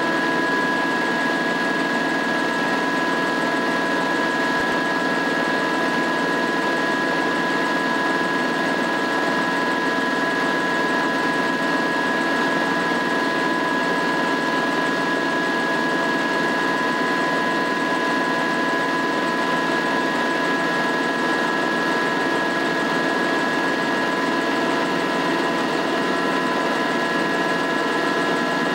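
Schweizer 300CBi helicopter's piston engine and rotor system running steadily, heard from inside the cockpit, with two constant high whining tones over the engine noise.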